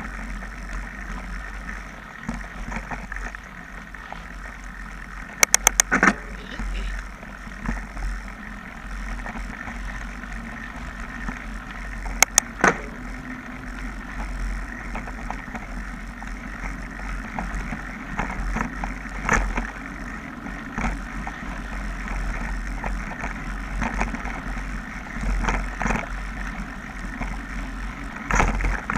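Mountain bike riding fast down a dirt trail: wind buffeting the microphone, tyres rolling over dirt and leaves, and the bike rattling over bumps. A quick run of four sharp clicks comes about five and a half seconds in, and two more around twelve seconds.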